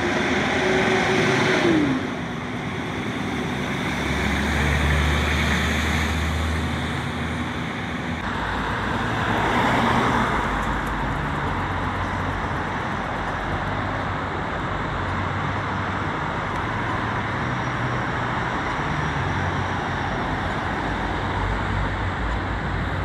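Road traffic on a city street, with cars passing. From about a third of the way in, a steady low rumble from a diesel locomotive's engine runs underneath.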